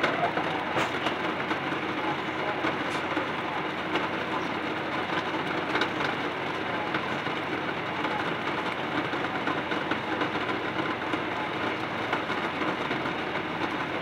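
Pot of water with eggs at a rolling boil: a steady bubbling hiss with frequent small rattles and knocks.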